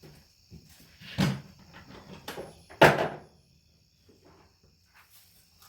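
Two knocks about a second and a half apart, the second the louder, from something being handled or set down, over crickets chirping steadily.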